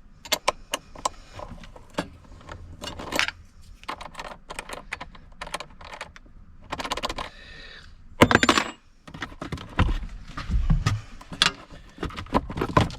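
Metal clicks, clinks and rattles of hand tools working a battery terminal cable loose, with a louder clatter about eight seconds in.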